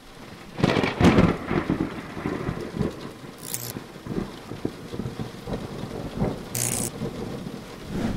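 Thunderstorm sound effects: a loud crash of thunder about half a second in, followed by uneven rolling rumbles over a bed of rain. Two brief high hisses cut through, one near the middle and one near the end.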